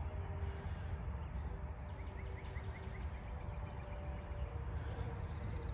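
Steady low outdoor rumble, with a quick series of about five faint bird chirps about two seconds in.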